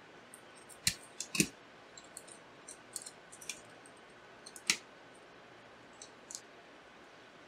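Small screws and a screwdriver clicking and tapping on a graphics card's backplate as the screws are started back in: scattered sharp clicks, the loudest about a second in, again just after, and near five seconds in.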